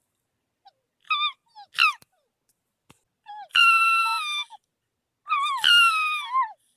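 Fox calling: two short high yelps, then two longer high-pitched cries, the last one sliding down in pitch.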